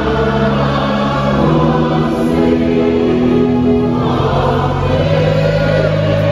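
Church congregation singing a slow hymn together over sustained organ chords, the notes held and changing every second or two.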